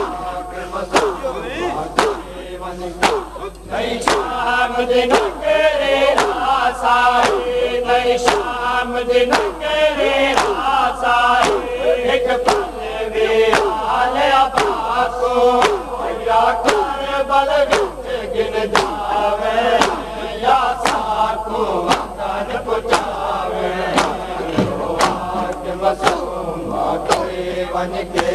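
Men chanting a noha lament, with the crowd beating their chests in unison (matam): sharp hand-on-chest slaps at a steady pace of about two a second keeping time under the voices.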